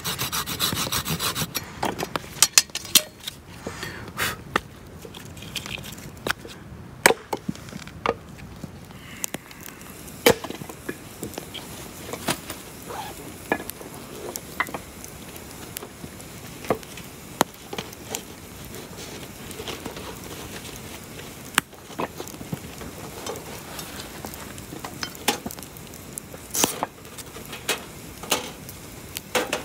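A knife blade scraping along a split log for the first couple of seconds. Then a wood campfire crackling, with scattered sharp pops.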